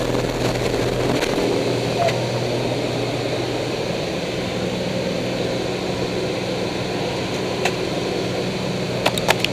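Light aircraft's engine and propeller droning steadily, heard from inside the cabin with wind noise. A few sharp clicks near the end.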